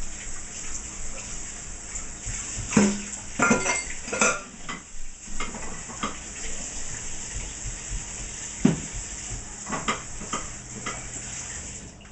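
Metal utensils and dishes clattering: a quick cluster of clinks and knocks about three to four seconds in, then single knocks around nine and ten seconds.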